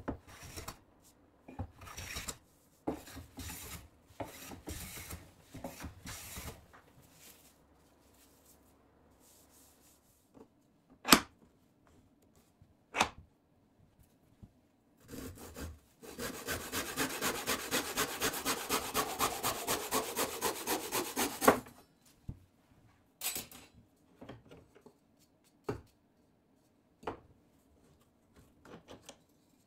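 Hand woodworking: scattered knocks and rubbing on wood, two sharp clicks, then about five seconds of fast, even back-and-forth strokes of a hand tool on wood, about four to five strokes a second.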